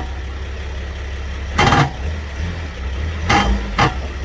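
Mercedes Sprinter van's engine idling steadily, with two short knock-like sounds, one a little under halfway through and another near the end.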